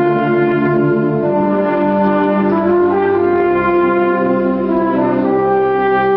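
Municipal concert wind band playing a slow passage of held brass and woodwind chords, the harmony shifting every second or two with no drum strokes.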